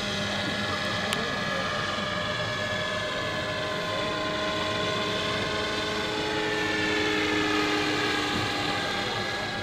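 Radio-controlled scale AS350 Ecureuil model helicopter in flight: a steady whine of its drive and rotors whose pitch wavers slowly as it moves across the sky, a little louder about three-quarters of the way through.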